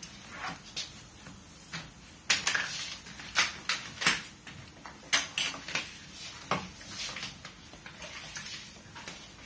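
Handling sounds of self-adhesive PVC film being pressed, folded and trimmed on wood: irregular short crackles and scrapes of the plastic film and cutter, louder and more frequent in the middle.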